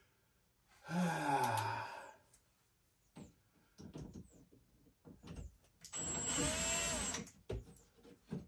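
A man lets out a falling groan of effort, then light knocks and clicks of hands and hardware against the wall. Near the end a cordless drill-driver runs for just over a second with a high whine.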